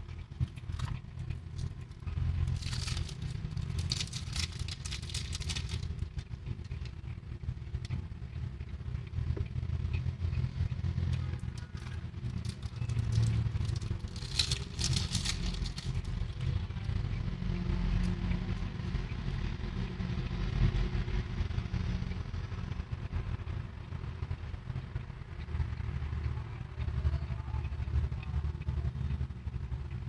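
Steady low background rumble, with two brief hissing swells about three seconds and fourteen seconds in.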